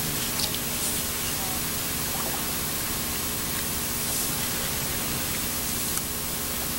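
Wooden canoe paddles stroking and dripping in river water beside a small wooden skiff, heard as a steady, even hiss with a few faint clicks.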